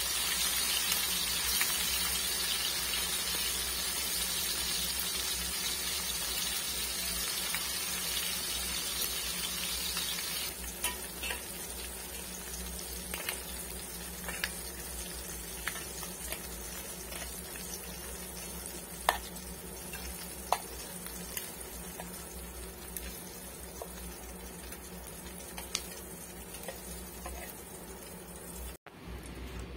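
Fish pieces frying in oil in a small pan, a steady sizzle that turns quieter about ten seconds in. Scattered sharp clicks of metal tongs on the pan and plate follow as the pieces are lifted out.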